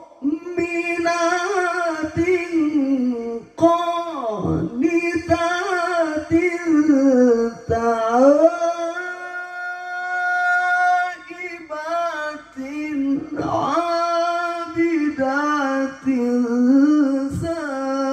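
A male qari reciting the Quran in melodic tilawah style into a microphone, amplified through a PA sound system. He sings long, ornamented phrases with short breaks for breath, and holds one long steady note about halfway through.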